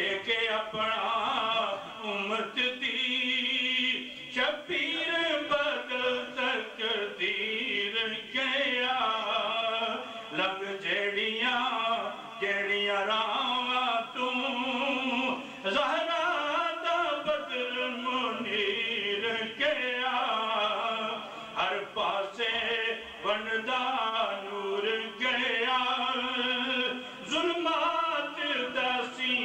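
A man's solo voice chanting melodically through a microphone, in long wavering, drawn-out phrases with brief pauses for breath between them.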